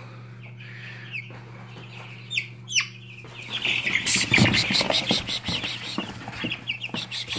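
Young chicks peeping: a few single falling peeps at first, then from about three seconds in a louder, busier mix of many chicks chirping with rustling in the bedding, over a steady low hum.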